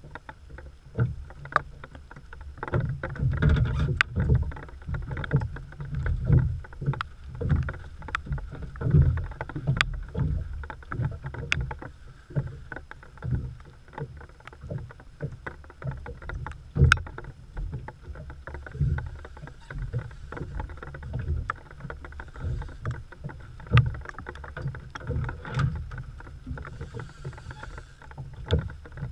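Heavy rain drumming on the camera housing and a small open boat: dense, irregular low thumps and sharp clicks.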